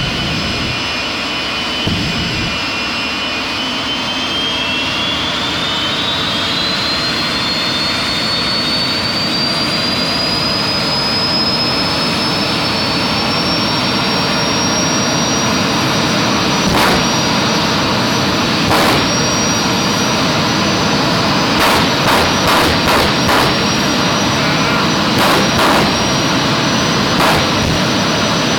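Jet dragster's turbojet engine running at full noise while standing in place. A turbine whine rises in pitch over several seconds, then holds steady. In the second half come about ten sharp bangs, several in quick succession.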